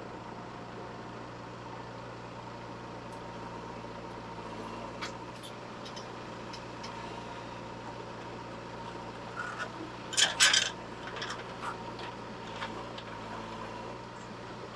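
JCB 3DX backhoe loader's diesel engine running steadily at close range, with a steady high whine over it. About ten seconds in, a cluster of loud knocks and clatter as the backhoe bucket swings over and dumps its load of earth into the steel tractor trolley.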